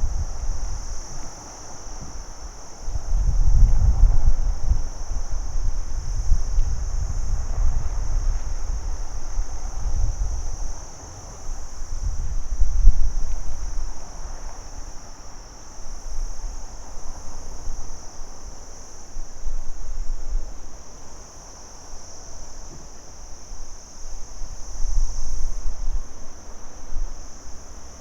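Crickets trilling in a steady, continuous high-pitched chorus. Underneath is a low rumble that swells and fades every few seconds.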